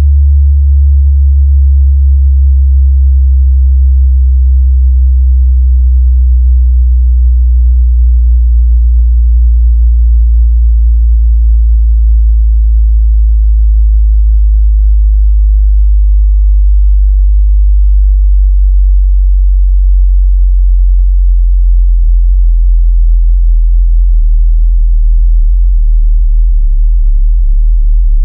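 Loud, very deep electronic sine-tone drone, held steady, with faint scattered clicks above it. The higher part of the drone falls away about two-thirds of the way through, leaving a lower hum.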